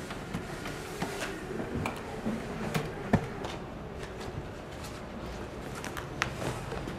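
Scattered light clicks and taps over quiet room noise, the sharpest a single knock about three seconds in.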